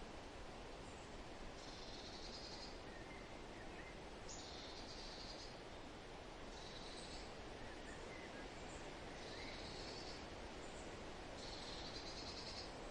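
Forest birds singing over a steady wind-like hiss. A high-pitched buzzy phrase repeats about every two seconds, with a few fainter, lower chirps in between.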